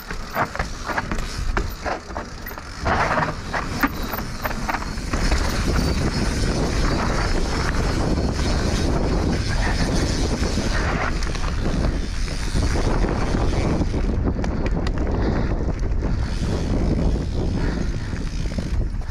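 Mountain bike riding down a rough dirt trail: a heavy low rumble of tyres over dirt and rocks, with rattling and clicking from the bike, louder from about three seconds in.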